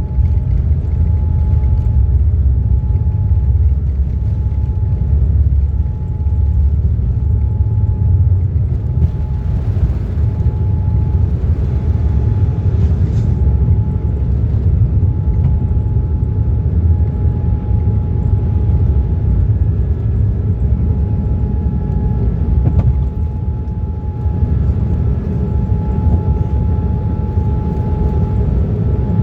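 Inside a Boeing 787-9 airliner's cabin: a loud, steady low rumble of engines and airflow with a thin, steady whine on top.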